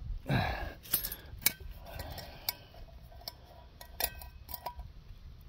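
Stainless steel shepherd's-hook tent stakes clinking and scraping as they are handled and pushed into the dirt: a handful of separate sharp metallic clicks, some ringing briefly.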